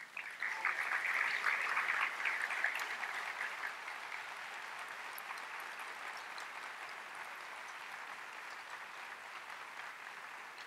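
Audience applauding, loudest over the first few seconds and then slowly tapering off.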